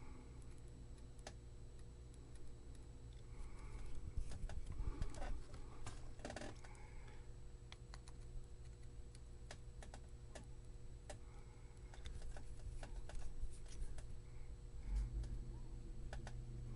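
Small clicks and taps of soldering tools working on a circuit board, irregular and bunched in two busier spells, over a steady low hum.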